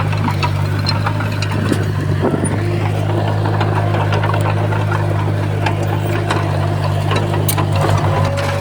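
Diesel engine of heavy earthmoving equipment running steadily, with scattered clicks and knocks over it.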